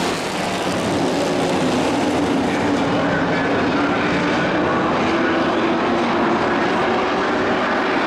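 A pack of dirt-track race trucks racing, their engines running together in a loud, steady drone with several engine notes drifting in pitch.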